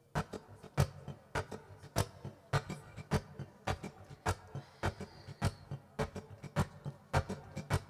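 Acoustic guitar strummed in a steady rhythm, short crisp strokes with a stronger one about every half second and lighter ones between, over low ringing notes: the instrumental intro before the vocal comes in.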